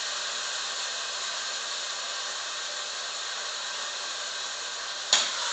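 Cubed chicken and chopped onion sizzling steadily in hot olive oil in a pan, with one sharp knock near the end.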